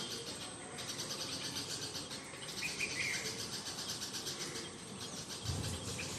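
Ambient birds and insects: a steady, fast high-pitched insect trill, with a short bird call heard twice. A brief low thump comes near the end.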